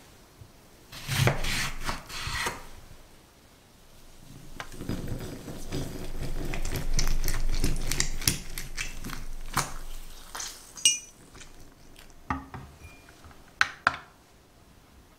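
A lemon rubbed on a wooden cutting board. Then a lemon half twisted and ground down on a ribbed glass citrus juicer for several seconds, with wet rubbing against the glass. A few sharp glass clinks and taps follow as the juicer and bowl are handled.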